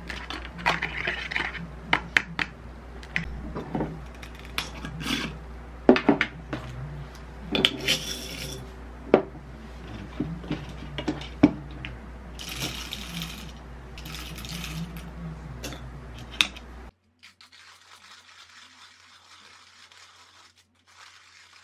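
Clinks and scrapes of tableware: a plastic fork scraping an empty plastic takeaway tray, then coffee beans spooned from a glass jar and rattling into a wooden hand-crank coffee mill. There are many sharp clicks and short rattles. About seventeen seconds in, the sound drops suddenly to faint handling.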